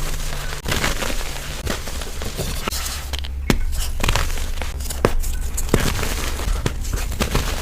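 A pressed powder block being crushed by hand: a continuous run of crunchy crackles, with several louder sharp cracks in the second half.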